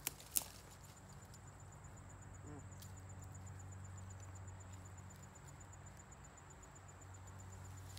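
Two sharp knocks right at the start, then faint woodland ambience with an insect chirping steadily at a high pitch, several pulses a second.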